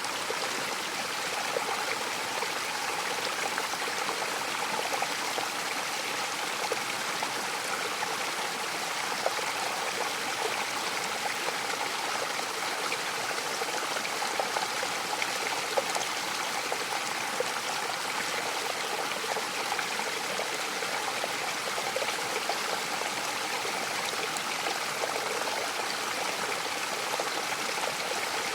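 Mountain waterfall: water splashing and rushing in a steady, even noise, with small splashes flickering through it.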